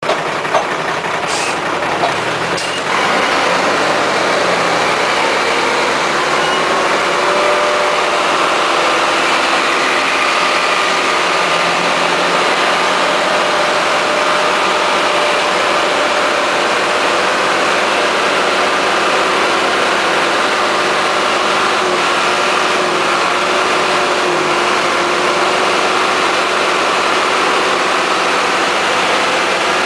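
Farm tractor engine running steadily under load as it tows a vehicle through mud, getting louder about three seconds in, with a couple of sharp clicks before that.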